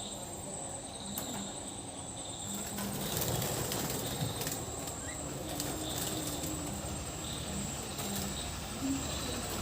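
Lovebirds fluttering and shuffling about in a cage, their wings flapping in short bouts with scattered light clicks. A steady thin high tone runs underneath.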